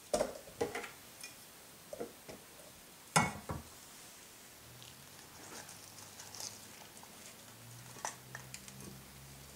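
A few sharp kitchen knocks on a wooden cutting board, the loudest about three seconds in. After that come faint, wet handling sounds as gloved hands pull apart soaked dried chiles in a glass bowl, over a low steady hum.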